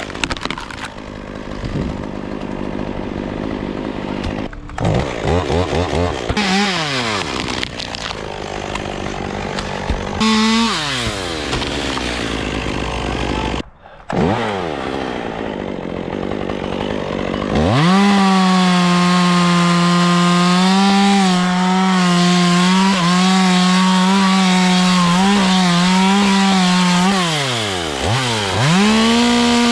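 Chainsaw revved in short bursts that fall back toward idle. From about 18 seconds in it is held at high speed, cutting wood steadily, with the revs dropping briefly near the end before picking up again.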